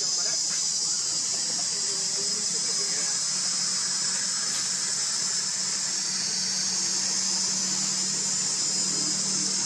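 Insect chorus in the forest: a steady, high-pitched, unbroken drone, with a low steady hum beneath it.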